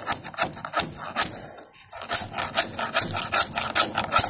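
A flat steel scraper blade scraping and prying delaminating fiberglass off a boat deck in short, sharp strokes, a few a second, with a brief pause about a second and a half in. The glass is lifting off in strips because it was poorly bonded.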